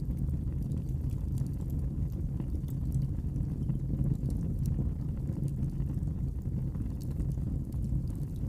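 Wood fire crackling in a fireplace: a steady low rumble of flames with scattered small, sharp snaps and pops throughout.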